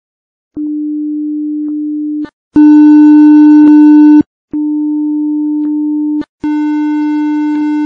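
A steady test tone played four times in a row with short gaps: first clean, then much louder and harsh with a tall stack of added overtones, then with a slight added overtone, then harsh again. These are the same pure tone clean and then overdriven and reshaped, the distortion adding harmonics; the hard-driven version sounds awful.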